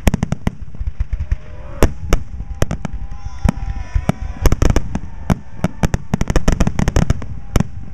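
Aerial firework shells bursting in a dense finale barrage: many sharp bangs in quick succession, coming thickest in the second half.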